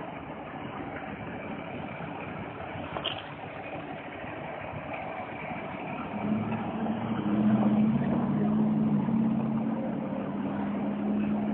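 Street traffic noise, with a vehicle's steady low engine hum coming in about six seconds in and growing louder.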